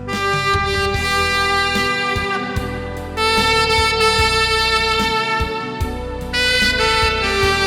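Tenor saxophone playing a slow gospel-song melody in long held notes over accompaniment with a steady beat. The melody moves to a new note about every three seconds.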